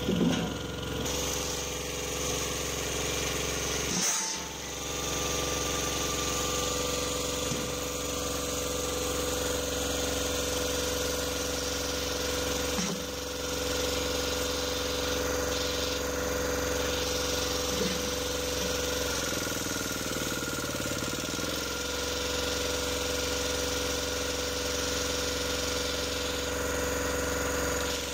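Heavy machinery engine running steadily with a constant drone, with a few brief breaks and a dip in pitch about two-thirds of the way through.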